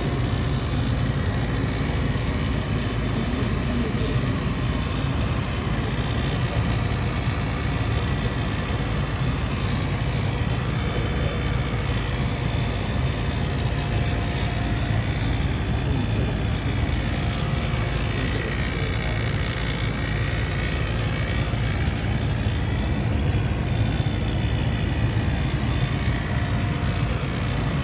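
Commercial air-conditioning unit running steadily under test with a newly replaced compressor: an even, loud machine hum and fan rush with no change throughout.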